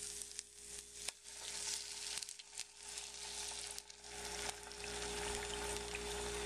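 Hot fat sizzling in a nonstick frying pan as beaten eggs are poured in over browned ham and chopped pizza toppings, with a few small crackles. The sizzle grows louder and steadier about four seconds in as the eggs spread across the pan.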